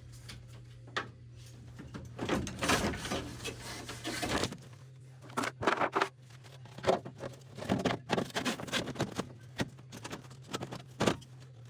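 Hands working with tools and parts: scattered clicks, rattles and scrapes over a steady low hum.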